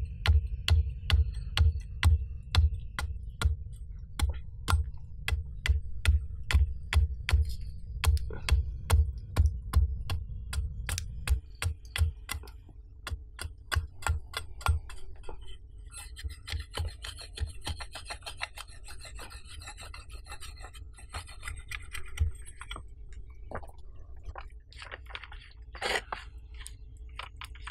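A large knife cutting down at a wooden stick held upright on a stone, shaving it to a point. Each stroke is a crisp cut with a thud against the rock, at about two a second, lighter after about eleven seconds and stopping about halfway through. Birds chirping and footsteps on the forest floor follow near the end.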